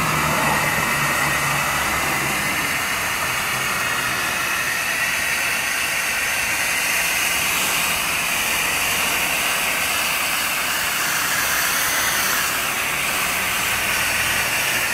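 Hand-held hose spray nozzle misting liquid fertilizer solution over seedling trays: a steady spray hiss, with a faint low hum underneath.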